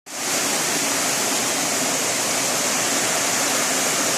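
Small waterfall splashing down a rock face into a rocky stream, a steady rushing of water.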